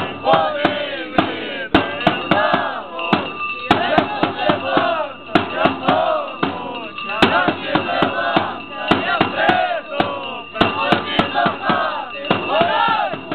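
Crowd of Malanka revellers shouting and whooping over music, with frequent sharp beats throughout.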